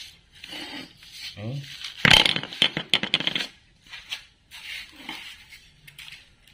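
Welded steel swing-arm parts being handled on a concrete floor: metal clanking and scraping against metal and concrete, with the loudest cluster of knocks about two seconds in.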